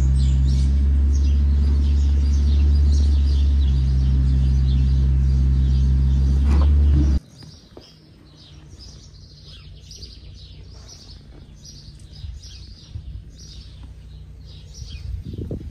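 Small birds chirping over and over. For the first seven seconds or so a loud, steady low rumble drowns them out, then it cuts off suddenly and the chirping goes on alone.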